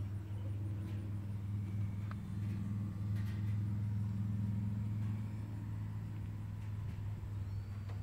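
A car engine idling, a steady low hum.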